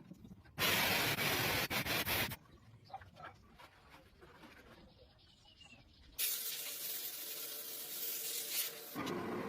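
A spray hissing in two bursts, the first about two seconds long and the second about three seconds long, starting roughly halfway through.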